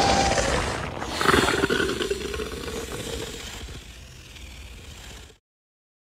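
Designed monster roar sound effect for Cthulhu. A roar is already sounding, then a second, louder roar starts about a second in. It holds a low, steady pitch for a while, slowly fades, and cuts off suddenly before the end, leaving silence.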